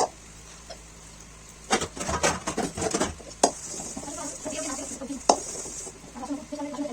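Dishes and cutlery clattering and clinking as they are washed by hand, with sharp knocks about two to three seconds in and again near five seconds.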